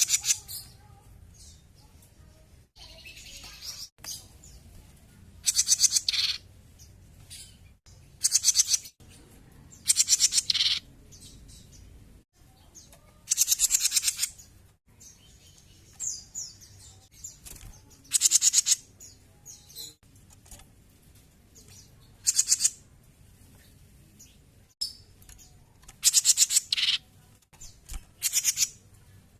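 Cucak jenggot (grey-cheeked bulbul) calling energetically: short, harsh, rapid chattering phrases, each under a second long, repeated every two to four seconds.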